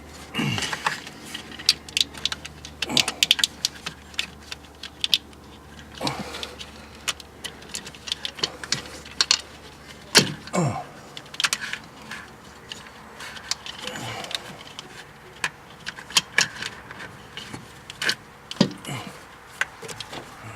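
Spark plug wire boots being worked off the old distributor cap and pushed onto the terminals of a new one, clicking into place. Scattered sharp plastic clicks and rattles from handling the cap and wires, with the engine off.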